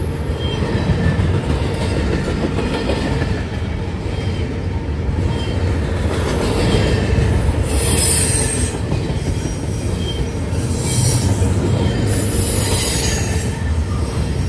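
Double-stack container cars of a CSX intermodal freight train rolling past close by: a steady, loud rumble of steel wheels on the rails, with several bursts of high-pitched wheel squeal in the second half.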